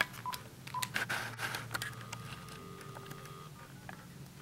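Uniden cordless phone handset being keyed to reach voicemail: short keypad beeps and button clicks, then a steady tone from the handset for about a second and a half.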